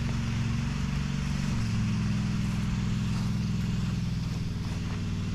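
Zero-turn mower's engine running steadily, its note changing slightly about a second and a half in.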